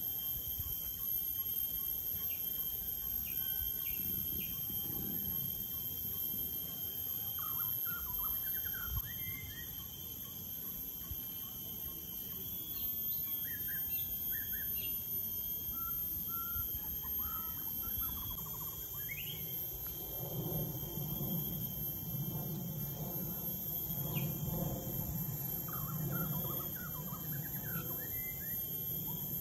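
Outdoor rural ambience: birds chirping in short scattered calls over a steady high-pitched drone of insects. A low hum comes in about two-thirds of the way through and fades before the end.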